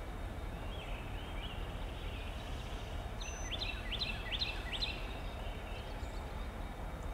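Low steady rumble of a diesel locomotive idling, with a songbird's quick run of chirps from about three to five seconds in.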